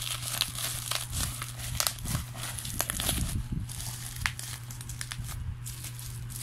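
Plastic bubble wrap crinkling and rustling as hands pull it apart to unwrap a small box, with many irregular sharp crackles.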